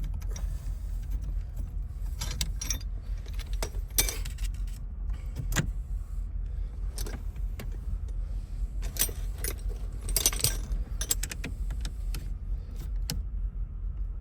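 Small metal parts and hand tools clinking and clicking irregularly while being worked inside a steering column, over a steady low rumble.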